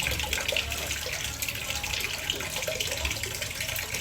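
Water running from a tap in a steady stream, splashing.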